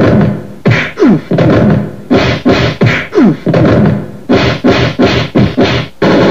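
A fast run of loud, short vocal grunts and cries, about two or three a second, some sliding down in pitch, heard over a censored beating. About six seconds in they break off and a loud, distorted burst of music cuts in.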